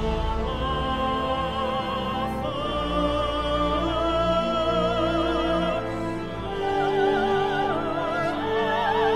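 Operatic singing with wide vibrato on long held notes, over a sustained orchestral accompaniment, from an excerpt of an opera on Chickasaw themes.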